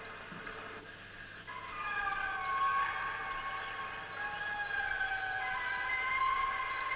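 Indri lemurs singing: several long, held wailing notes that overlap and slide in pitch. A faint regular ticking, about two to three times a second, runs behind them.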